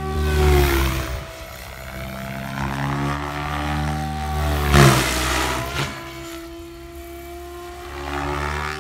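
Electric RC helicopter in flight: the motor and rotor whine dips in pitch and recovers as it manoeuvres, with rushing swells about half a second in and, loudest, about five seconds in. It is a test flight after the gyro gains were lowered.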